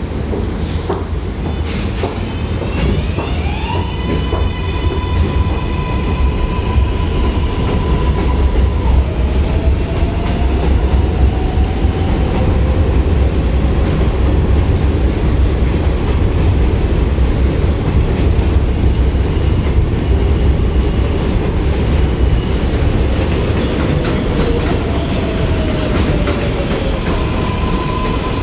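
Kawasaki R188 subway train pulling out of the station: its propulsion whines in rising, stepped tones as it gets under way, over a heavy steady rumble of wheels on rail that grows louder as the cars pass. Near the end the whine tones return as a second R188 train comes in on the other track.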